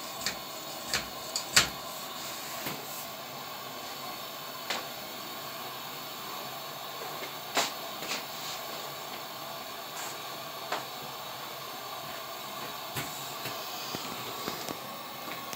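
Petromax Rapid 1500/500 pressure lantern burning with a steady hiss from its pressurised burner, with scattered light clicks and knocks over it, several in the first two seconds.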